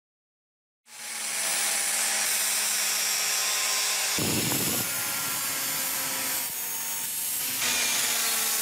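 Angle grinder running with a sanding disc on the steel kukri blade: a steady motor whine over a grinding hiss. It cuts in abruptly about a second in, with a short low rush a little past the middle.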